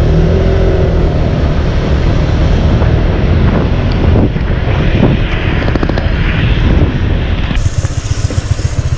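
Motor scooter engine running steadily as it is ridden, with rushing air on the microphone. Near the end the steady drone gives way to a choppy, pulsing sound as the scooter slows onto cobblestones.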